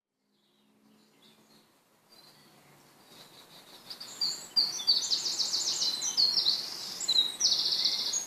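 Songbird singing, a fast series of high trills and chirps that grows loud about four seconds in, over a steady outdoor hiss.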